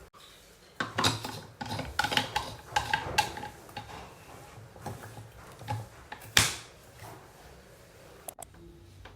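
Clinking and clattering of hard objects being handled, a quick run of clinks followed by scattered knocks and one sharp loud click.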